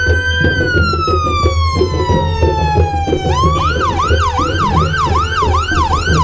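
Fire engine siren: a slow wail that falls steadily in pitch, then about three seconds in switches to a fast yelp, rising and falling about two and a half times a second, over a steady low hum.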